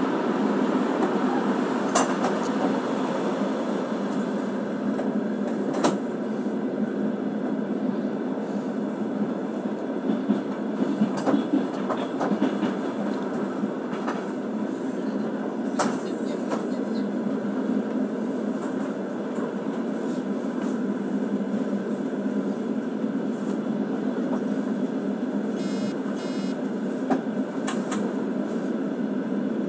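Steady rumble of a moving train heard from inside the carriage, with scattered sharp clicks and knocks. Near the end, two brief high-pitched squeaks.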